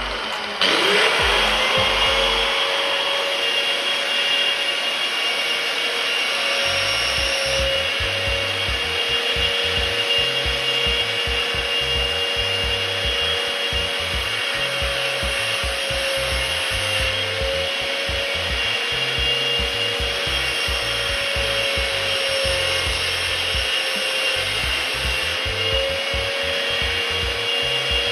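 An electric motor driving a diamond sharpening wheel spins up about a second in, then runs steadily with a high whine. A carbide-tipped ACP grooving cutter is held against the wheel, and its teeth grind and rub against the diamond as they are sharpened.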